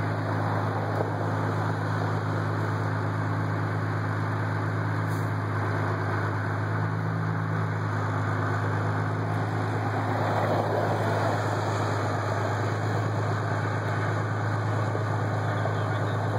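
Fire truck's engine running steadily with a constant low hum, swelling slightly about ten seconds in.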